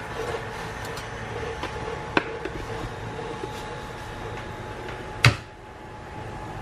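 A fork stirring wet pieces of raw squid in a bowl, giving a few light clicks, over a steady hum. There is a sharp knock about five seconds in.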